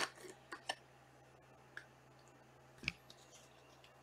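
Trading cards being handled: a sharp click at the start, a few softer clicks within the first second and another about three seconds in, over a faint low steady hum.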